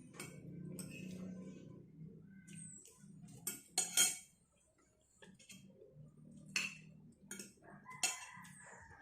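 Eating sounds: utensils clinking against a dish in a few sharp clinks, the loudest about four seconds in.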